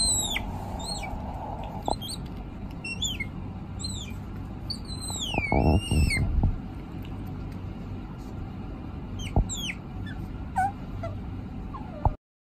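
High-pitched squeaky animal calls, each sliding down in pitch, coming in short runs over a steady low rumble. There is a louder noisy burst about halfway through, and the sound cuts off abruptly near the end.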